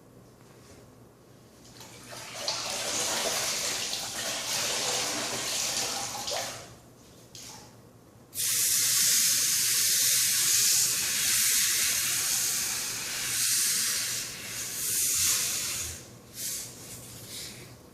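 Gas torch flame hissing while it heats a copper pipe joint for soldering, in two spells: a softer one early on, then a louder one that starts abruptly about eight seconds in and cuts off about two seconds before the end.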